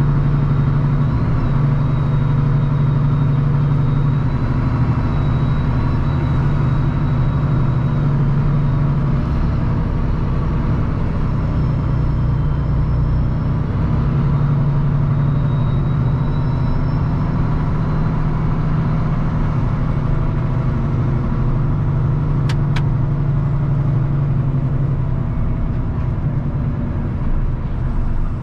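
Diesel engine of a 2022 Kenworth W990 log truck running steadily while the truck drives on, a deep continuous drone. Two sharp clicks about 22 seconds in.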